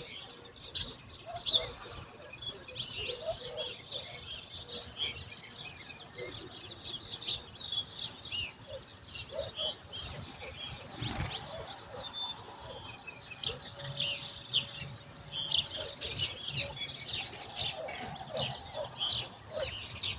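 A dawn chorus of many small birds chirping and calling over one another, with a few lower calls underneath. A brief sudden noise sounds about eleven seconds in.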